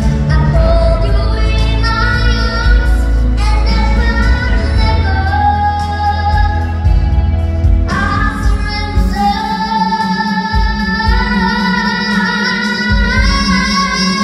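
A song performed by one voice, holding and sliding between long notes over instrumental accompaniment with a strong bass; the accompaniment changes and thins about eight seconds in.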